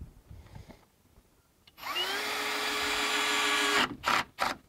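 Cordless drill/driver running a fastener in: the motor spins up quickly to a steady pitch for about two seconds and stops, followed by two short bursts.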